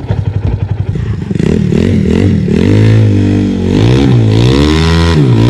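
Honda Titan 150 single-cylinder four-stroke motorcycle engine driving a mini jet boat. It chugs at low revs for about the first second, then is revved hard, its pitch rising and wavering before holding high, with two brief dips as the throttle eases.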